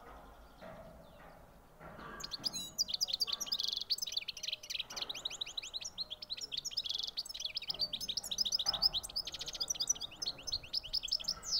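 European goldfinch singing in its cage: a long, fast run of twittering and trilled notes that starts about two and a half seconds in, with short buzzy trills mixed in.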